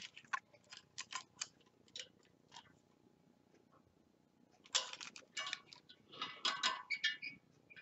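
Light irregular metal clicks and taps of a spoke wrench working the spoke nipples of a laced motorcycle wheel, as each nipple is brought up to tension. The clicks bunch together about five seconds in and again near the end.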